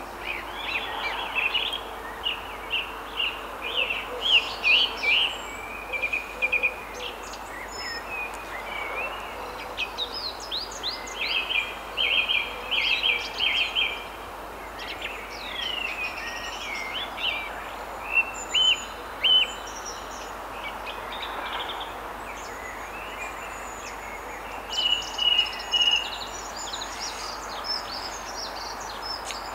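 Several songbirds singing in short chirps, rapid trills and down-slurred notes, over a steady background hiss.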